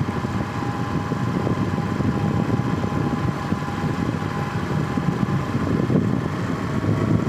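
Steady rumble of a moving vehicle, with road and wind noise and a faint steady whine over it.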